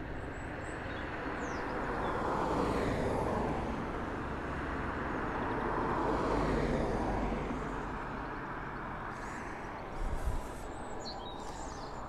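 Road traffic passing on a main road: two vehicles go by, each swelling and fading, over a steady low wind rumble on the microphone, with a brief bump near the end.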